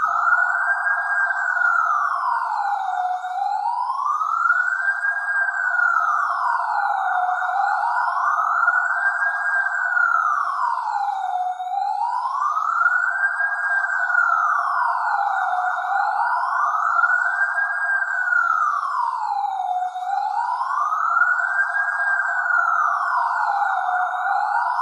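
Electronic police siren from a clip-on red-blue LED police shoulder light, sounding a slow wail that rises and falls in pitch about once every four seconds, steady and unbroken.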